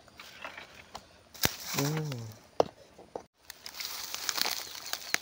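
Handling noises: a sharp click, a short spoken word, another click, then a stretch of crackling rustle with many small clicks near the end.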